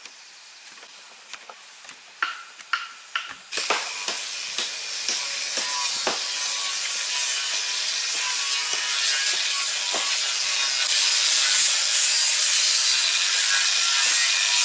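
A few sharp knocks, then a power saw cutting through wooden boards, a steady loud whir that slowly grows louder, during repair work on the wooden decking of a footpath.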